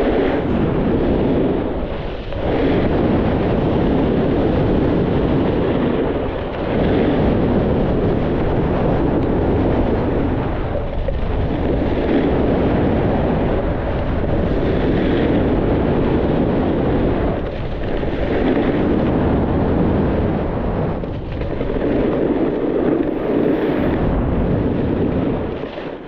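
Snowboard sliding and scraping over groomed snow, a loud rough rushing that swells and dips every few seconds as the rider links turns.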